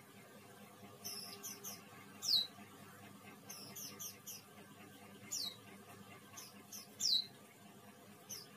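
Small bird chirping repeatedly: short, high-pitched calls that each slide downward, coming singly and in quick clusters, the loudest about two seconds in and again near seven seconds.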